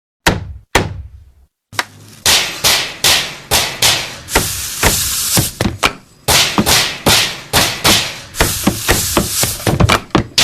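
A string of loud bangs and knocks, each ringing out briefly: two single bangs at first, then a steady run of about two a second that speeds up near the end.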